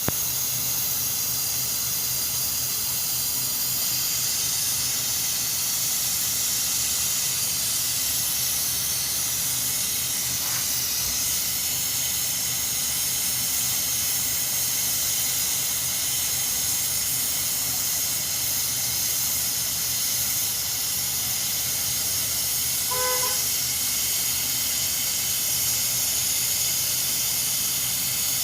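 Steady, loud hiss of pressurised gas escaping, over a faint low hum, as in venting or blowing through an air-conditioning compressor and its lines during repair. A short horn-like beep sounds once about 23 seconds in.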